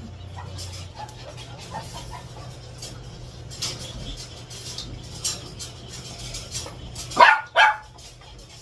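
Small dog barking twice near the end, two sharp barks about half a second apart, after a few softer yips and scuffles, over a low steady hum.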